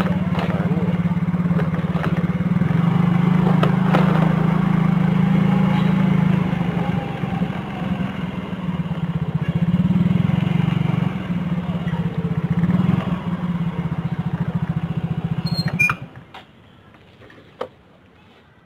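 Yamaha motorcycle engine running steadily while riding. It stops abruptly near the end.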